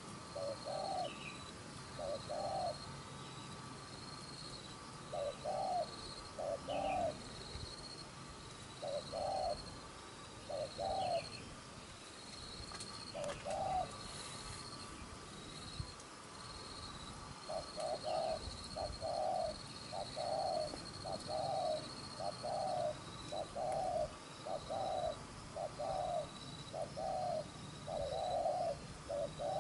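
Spotted dove cooing. Low coo notes come in spaced pairs at first, then in an even run of about one and a half a second from a little past halfway.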